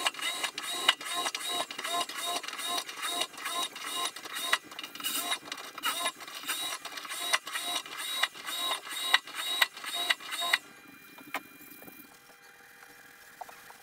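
A hole being cut through the boat's steel hull plate, heard from inside the hull: a rhythmic metallic chatter of about two strokes a second with a ringing tone. It stops about ten and a half seconds in, leaving a faint hum.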